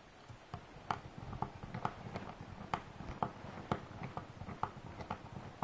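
Small screwdriver turning a tiny screw into the plastic arm of a Syma X8W quadcopter to hold on a prop guard, with faint, irregular clicks, about two or three a second.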